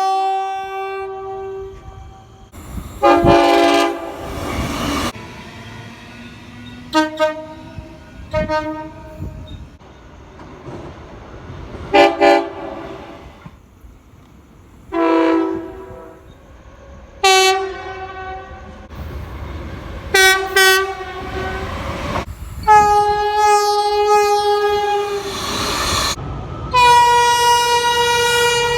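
Train air horns sounding a run of separate blasts, some short and some held for a few seconds, with the longest ones near the end, over the rumble of passing trains.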